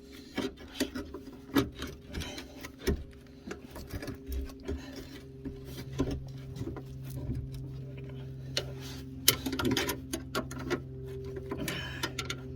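Hand tools clicking and knocking against metal in irregular short taps while fitting parts to a car's front suspension drop link, over a steady low hum.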